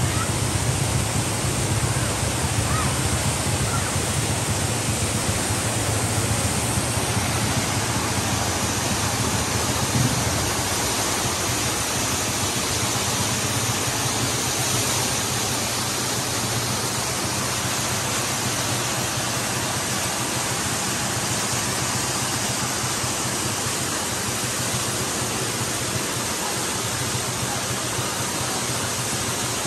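Steady rush of a waterfall: water pouring over rock cascades in a jungle river, with a brief dull thump about ten seconds in.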